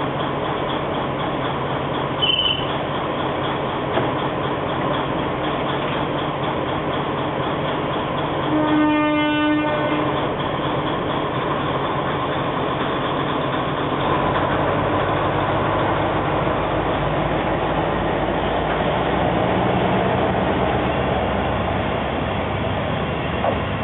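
Shimabara Railway KiHa 20 diesel railcar's DMH17-series engine idling, with a brief high beep about two seconds in. About nine seconds in its horn sounds once for about a second; from about fourteen seconds the engine opens up and the railcar pulls away.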